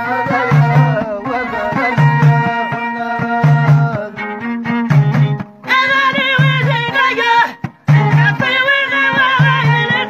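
Amazigh folk music played live on frame drums and a long-necked plucked lute. A low drum beat comes about every second and a half under a busy string melody. From about six seconds in, a wavering high melody joins, and the sound drops out briefly near the end.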